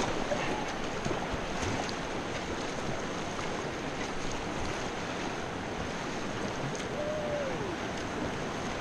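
Steady rush of whitewater in creek rapids, heard from a kayak on the river.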